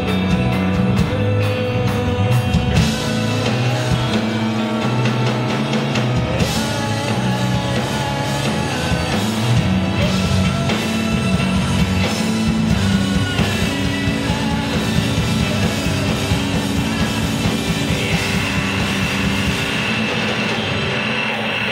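A live rock band playing: electric guitar, bass guitar and drum kit, with a keyboard, in a full, steady band sound.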